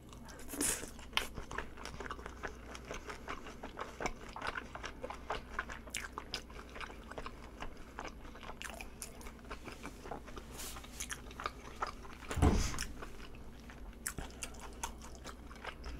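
Close-miked chewing of a mouthful of large battered fried shrimp in chili sauce (kkanpung-style kkansho shrimp): many small crunches and wet clicks, with one louder low thump about twelve and a half seconds in.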